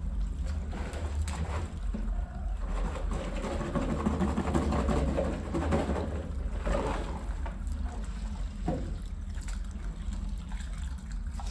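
Water running and splashing over a rug being washed, over a steady low hum, busiest in the middle stretch.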